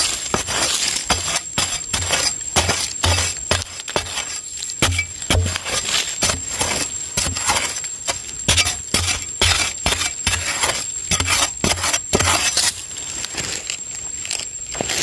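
A digging tool chopping into hard, dry soil in quick repeated strikes, each a sharp crunchy hit with a dull thud, as the ground is broken up and loosened.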